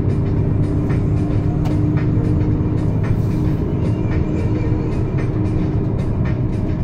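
Inside a truck cab at highway speed: a steady engine and road drone, with music playing over it to an even beat.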